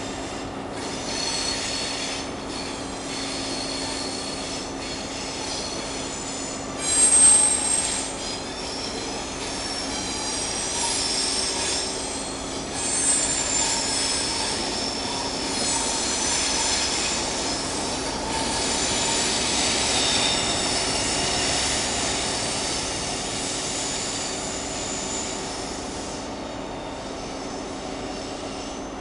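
Wheels of a First Great Western InterCity 125 high-speed train squealing as it runs slowly over curved track and points, high shrill tones coming and going over a rumble of the wheels. There is a steady low drone underneath, and the squeal is sharpest about seven seconds in.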